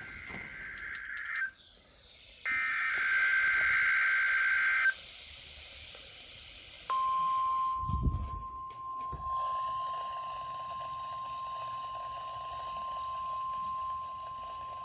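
Emergency Alert System (SAME) header data bursts from a NOAA Weather Radio receiver: a buzzy, screeching data burst ends about a second and a half in, and a second runs from about two and a half to five seconds. About seven seconds in, the steady single-pitch weather radio warning alarm tone starts and holds, with a brief low thump shortly after it begins.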